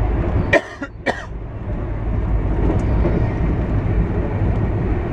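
Steady rumble of a passenger train running at speed on the rails, heard from inside the coach. A few short sharp sounds come about half a second to a second in.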